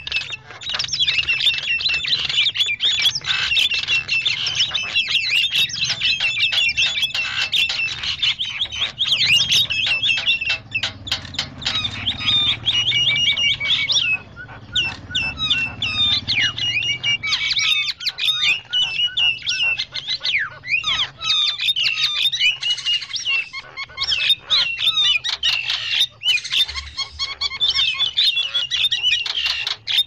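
Javan mynas chattering noisily, many harsh squawks, clicks and whistled calls overlapping without a break. This is a myna lure-call recording.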